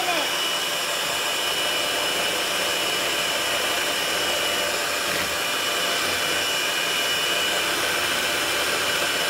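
Electric hand mixer running steadily, its twin beaters whisking eggs and sugar in a plastic bowl: an even motor whir with a thin high whine.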